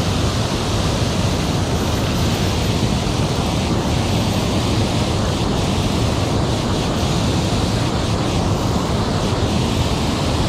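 Water pouring over a low dam into the river, a steady rushing.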